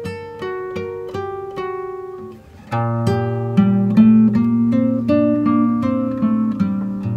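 Background music: acoustic guitar plucking a melody, growing louder and fuller with low bass notes about three seconds in.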